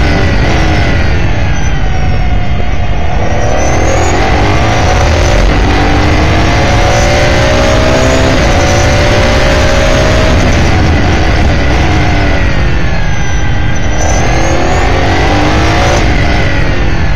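Onboard sound of an S5000 open-wheel race car's 5.0-litre Ford V8. The engine note falls under braking and downshifts at the start, then climbs as the car accelerates at full throttle. It falls again about two-thirds of the way through and climbs once more near the end, over heavy wind noise.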